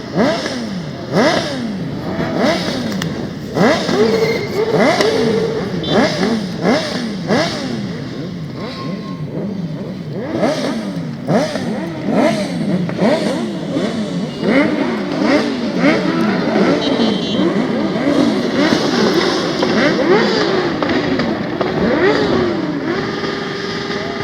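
Several off-road motorcycle engines revving, their pitch repeatedly climbing and dropping as they accelerate and change gear, the sweeps overlapping.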